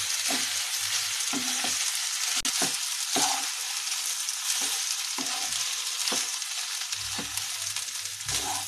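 Parboiled rice sizzling gently in ghee in a nonstick kadhai on a low flame, with a flat spatula scraping along the pan and turning the rice in repeated short strokes.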